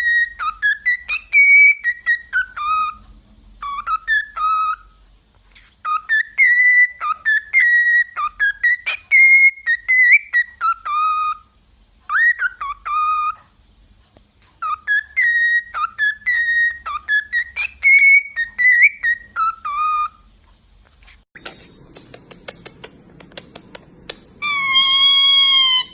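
A pet bird whistling a repeated tune in clear, sliding notes, in four phrases with short pauses between them. Near the end comes a louder, harsher call with many overtones.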